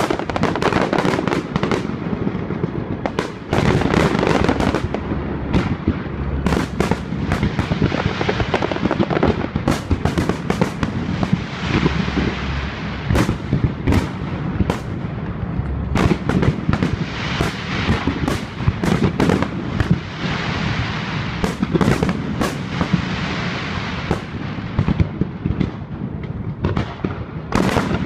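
Fireworks display going off thick and fast: a continuous run of shell bursts and bangs with crackling between them, with no pause.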